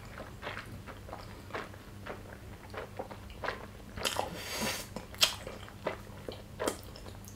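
Close-miked chewing of gyoza dumplings with the mouth closed: a string of wet smacks and clicks, one or two a second, with a longer rushing noise about four seconds in.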